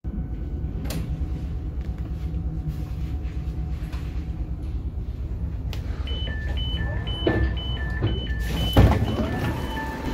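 Train at the platform with a steady low rumble, then from about six seconds in a fast beeping that alternates between a high and a lower tone, the door warning signal as the doors open. A loud knock comes near the end.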